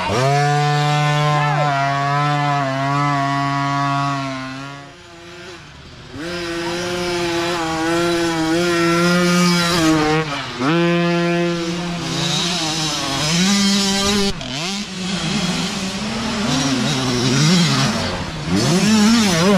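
Mini dirt bike engines revving hard: a high buzzing note that holds steady, drops away briefly about five seconds in, then rises and falls with the throttle. Near the end several engines overlap, their pitches weaving up and down.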